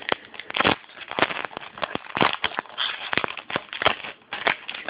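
Football trading cards being flipped through by hand, each card sliding and snapping against the next in a quick, irregular run of crisp clicks and rustles.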